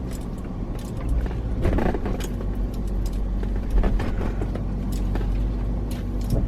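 Inside the cabin of a BMW E70 X5 on the move: a steady low engine and road rumble, with scattered light rattling clicks.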